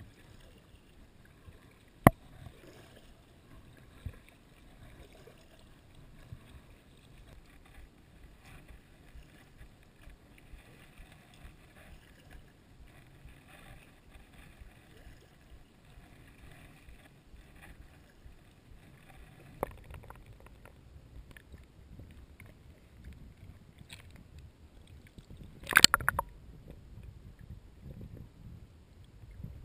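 Paddling an inflatable kayak: faint water sloshing and paddle noise, with a sharp knock about two seconds in, a couple of fainter knocks, and a louder burst of knocks and splashing a few seconds before the end.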